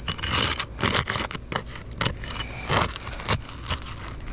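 Roof shingle being pried up and torn loose, with irregular scraping and rasping. The sealed shingle tears and leaves material stuck behind instead of releasing cleanly.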